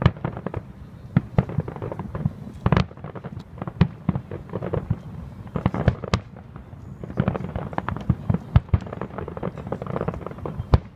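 Aerial firework shells bursting: a rapid, irregular string of sharp bangs, with a few louder reports standing out among them.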